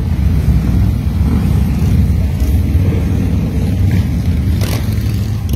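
A procession of motorcycles, mostly Harley-Davidson V-twin touring bikes and trikes, riding past close by. Their engines make a deep, steady sound with no letup.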